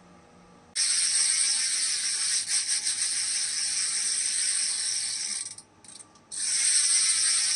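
Theory Rattlesnake 16-tooth BMX freewheel spinning, its pawls ratcheting in a fast, loud, continuous buzz. It starts about a second in, stops briefly near the end, and starts again.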